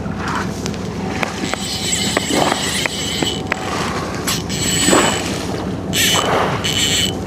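Boat engine running steadily, with gusts of wind on the microphone and water washing against the hull, and a few light clicks.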